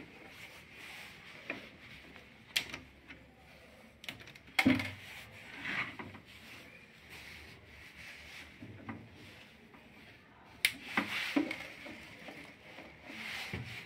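Hands working inside an RO water purifier: scattered plastic clicks, knocks and rubbing as its tubing, push-fit connectors and filter housings are handled. The sharpest clicks come about two and a half, four and a half and eleven seconds in.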